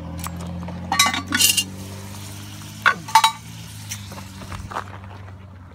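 Metal utensils clinking against a cast iron camp Dutch oven: a few sharp clinks about a second in, again around a second and a half and three seconds, and a lighter one near the end, over a steady low hum.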